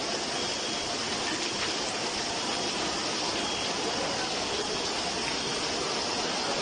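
Heavy rain pouring down in a steady, continuous hiss of water.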